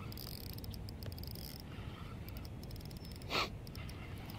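Spinning reel being cranked while fighting a large fish, a fast run of faint fine clicks over a low rumble, with one short louder hiss, like a sharp breath, about three and a half seconds in.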